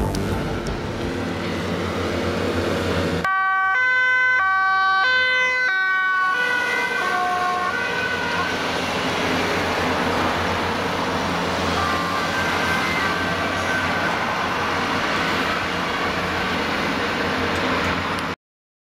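Dutch police van's two-tone siren, alternating between two pitches about every half second. After a few seconds it grows faint and comes and goes under steady traffic noise, then cuts off abruptly near the end.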